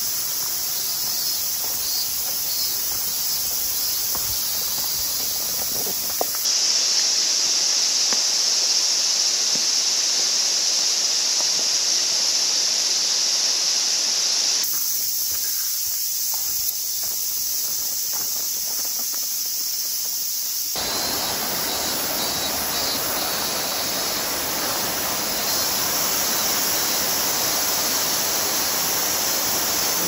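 Outdoor nature ambience with a steady high-pitched hiss, whose character changes abruptly three times, about a fifth, half and two-thirds of the way in.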